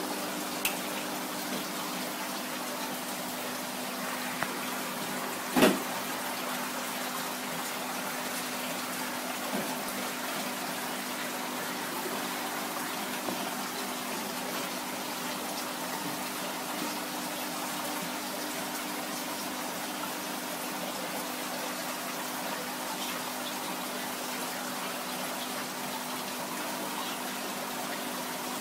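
Steady bubbling and rushing of water in aerated aquarium tanks, with a steady hum underneath. A single sharp knock about five and a half seconds in.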